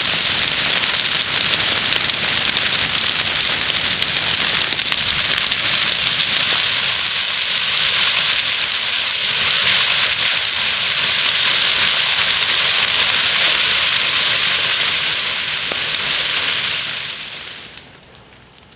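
Dry prairie grass (bluestem and switchgrass) burning in a prescribed burn, the flame front making a loud, dense crackling hiss much like heavy rain. It fades away near the end.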